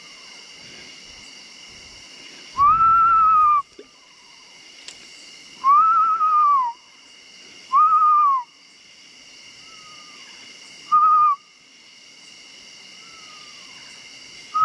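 A person whistling loud single rising-and-falling hoot-like notes about a second long, five times, in imitation of a bird, and fainter calls of the same shape answering in between. The bird is one the whistler takes for a mourning dove or an owl. A steady high insect drone runs underneath.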